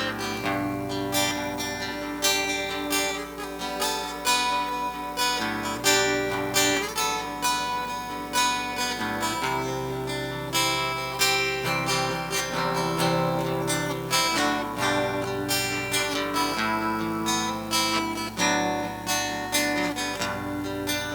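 Acoustic guitar strummed steadily in a short instrumental passage with no singing, its chords changing every few seconds.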